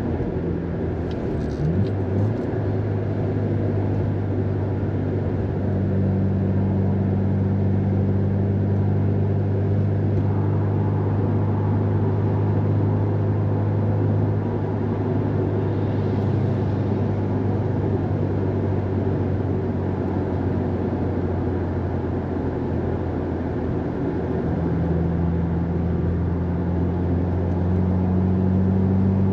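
Subaru WRX STI's turbocharged flat-four engine heard from inside the cabin while driving, holding steady revs over tyre and road noise. The engine note climbs a little near the end.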